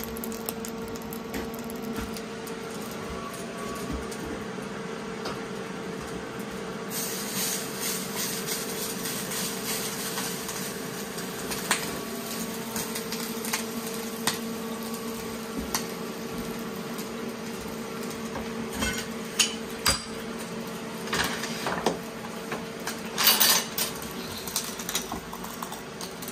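Steady hum with scattered metallic clinks and clatter of steel parts, and a few short bursts of hiss in the last several seconds.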